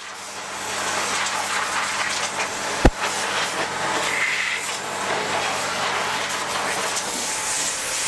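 Portable electric car pressure washer running, its water jet spraying against a car tyre and wheel: a steady hiss of spray over the motor's hum. A single sharp click about three seconds in.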